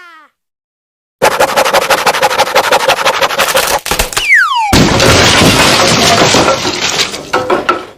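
Cartoon sound effect: a rapid rattling clatter, broken about four seconds in by a short falling whistle, then a noisier clatter that fades out near the end.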